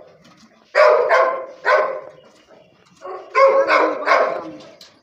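A dog barking in two short runs of about three barks each, one about a second in and another past the middle.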